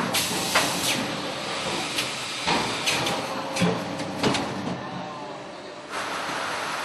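Polystyrene foam food-container forming machine working through its press cycle: hissing blasts of air or steam and several sharp clunks from the mould press, with a long hiss starting again about six seconds in.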